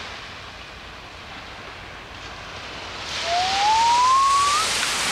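Steady rushing outdoor noise of the beach that swells about three seconds in, with one clear whistle-like tone rising in pitch over it for about a second and a half.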